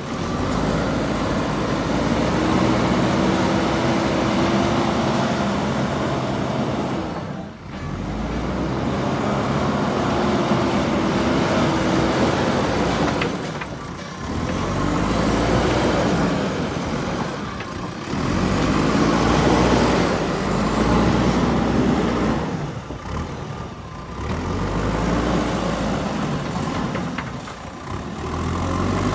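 JCB 3DX Super backhoe loader's diesel engine revving hard under load as the front bucket pushes and levels soil. It eases off briefly every four to six seconds, then builds up again.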